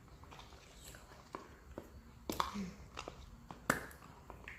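Spoon stirring glue and water in a bowl, knocking against the sides in irregular clicks, the loudest about three and a half seconds in.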